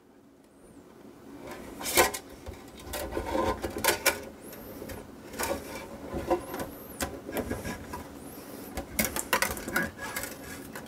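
Handling noise from a plastic filament dryer's clear lid and a spool of PLA filament: irregular clicks, taps and rubbing, with a few brief high squeaks as the filament is fed through the hole in the lid.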